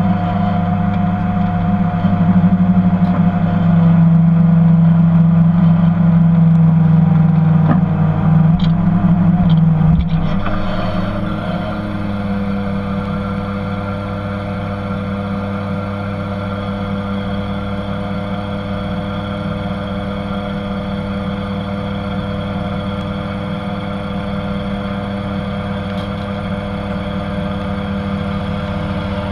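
Fishing boat's engine running steadily, louder for the first ten seconds, then easing off about ten seconds in and running on at a lower, even level.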